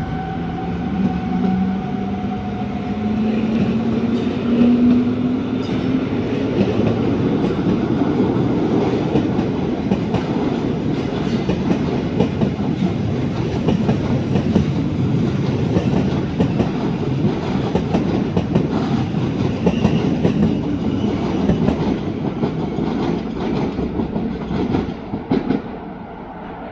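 Rhaetian Railway electric locomotive pulling away, its drive giving a rising whine over the first few seconds, then a train of coaches rolling past close by with wheels clattering over rail joints and points. The rolling noise drops near the end as the last coach passes.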